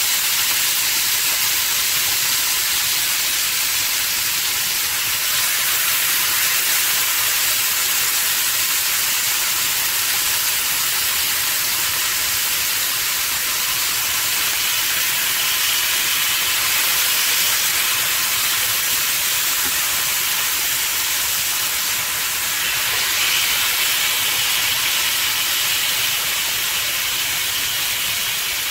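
Marinated chicken tikka leg pieces sizzling steadily in hot oil on a grill pan over a high gas flame, seared hard on high heat to seal in their juices.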